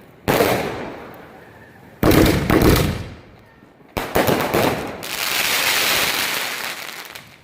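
Sony Pixels 20-shot firework cake firing: three sharp shots about two seconds apart, each dying away over roughly a second, then a longer hissing, crackling stretch of about three seconds that fades near the end.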